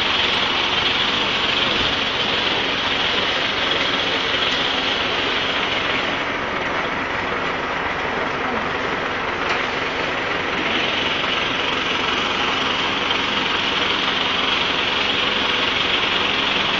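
Steady motor-vehicle engine and road noise, a continuous hiss-like running sound that eases slightly about six seconds in and returns about four seconds later.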